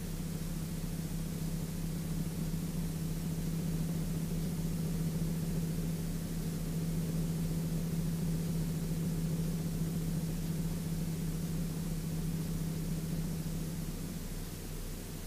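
Sling 2 light aircraft's Rotax 912 engine and propeller running steadily in flight: a constant low hum with an even hiss over it, heard in the cockpit.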